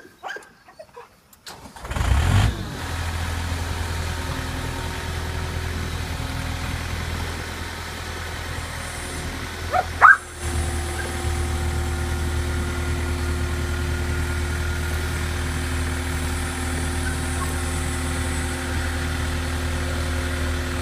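Skid steer engine starting about two seconds in and then running steadily. About ten seconds in comes a short, loud rising sound, after which the engine runs on.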